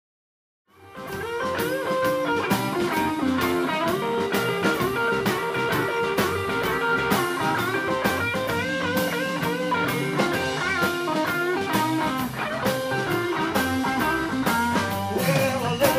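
Live blues band playing instrumentally: electric guitar, bass guitar and drums with a harmonica lead over a steady beat. Silent for about the first second, then the band comes in at full level.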